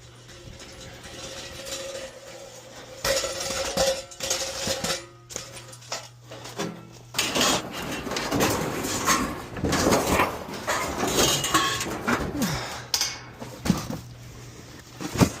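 Scrap metal being handled: repeated clanking, knocking and rattling of metal pieces, starting about three seconds in and getting busier in the second half, over a steady low hum in the first half.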